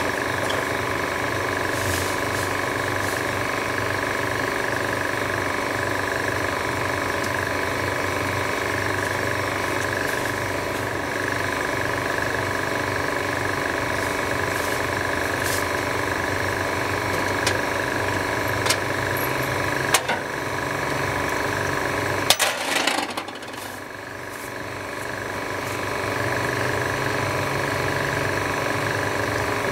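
A motor or engine running steadily, with a few sharp clicks and knocks in the second half; the running sound dips briefly about three-quarters of the way through, then comes back.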